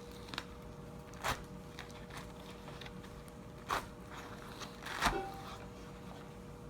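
Three short scraping clatters from the pineapple cutter being handled, the last the loudest, over a faint steady hum.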